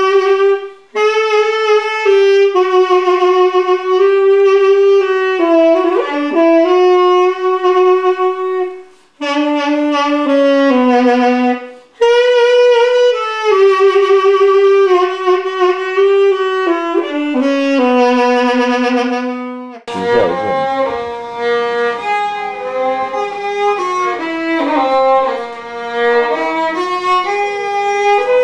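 Unaccompanied saxophone playing a melody in long held notes, with brief breaks between phrases. About 20 seconds in it cuts abruptly to an unaccompanied violin melody.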